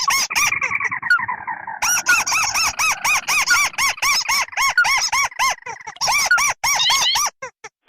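Crake calls from a bird-lure recording mixing ruddy-breasted crake and white-browed crake: a fast series of short, arched, squeaky notes, several a second, overlapping a falling trill in the first two seconds. The notes break off near the end.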